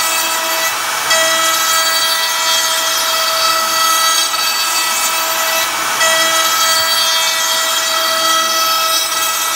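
Millright Mega V XL CNC router milling a wooden board with a small end mill: the spindle runs with a steady high whine over the hiss of the bit cutting wood. The cut's tone and loudness change twice, about a second in and again about six seconds in.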